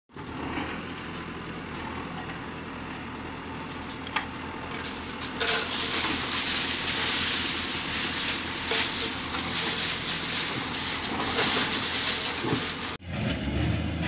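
JCB 3DX backhoe loader's diesel engine running steadily, then from about five seconds in louder, with a harsh rushing and crackling noise as the backhoe arm works into the broken concrete rubble. A brief drop near the end, then another engine.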